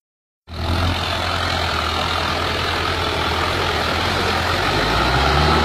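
Tractor engine running steadily as the tractor ploughs through deep water, under a constant rushing hiss. It starts about half a second in, and the engine note rises slightly near the end.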